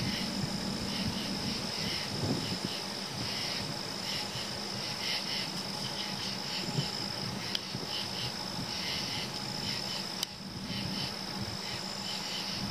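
Night insects such as crickets calling: a steady high trill with groups of pulsed chirps repeating over and over. A single sharp click about ten seconds in.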